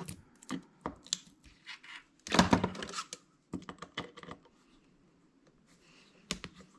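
Small metal handling noises from a hard drive being taken apart: irregular clicks and scrapes of a tool on the drive's casing while the hidden screw is sought and worked. The loudest is a scraping rasp about two and a half seconds in, with a sharp click near the end.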